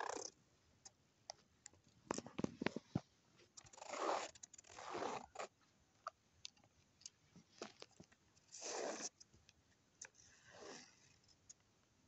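Felt-tip pen scratching on paper as a plastic spirograph gear is turned around the toothed ring, in short strokes of a second or less with scattered small plastic clicks, a cluster of them about two seconds in.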